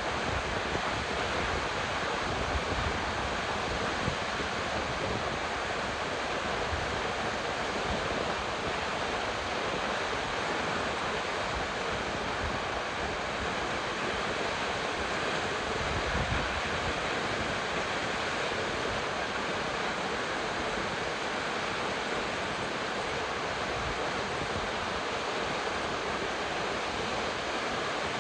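Salt Creek Falls, a tall plunge waterfall, with a steady rush of falling water. Wind buffets the microphone now and then, with low rumbles near the start and about sixteen seconds in.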